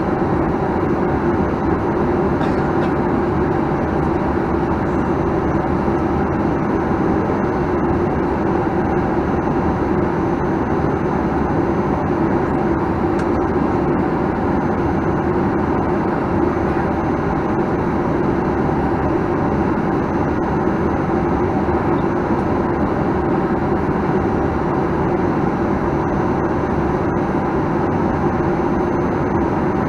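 Steady, unchanging noise of a Boeing 737-900ER's CFM56-7B engines and airflow, heard inside the passenger cabin.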